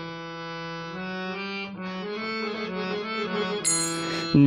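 Harmonium playing the lead-in to a devotional song: a low note held steady while the upper notes change every second or so in a short melody.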